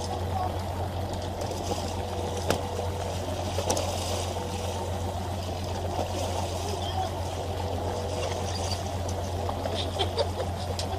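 Fishing boat's engine running steadily, with water sloshing and splashing against the hull.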